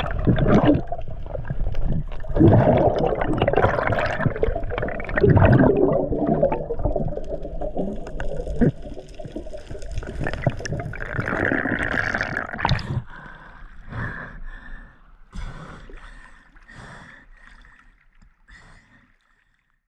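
Muffled water rushing and gurgling around an action camera held underwater, with bubbling as a spearfisher swims. It fades away over the last several seconds.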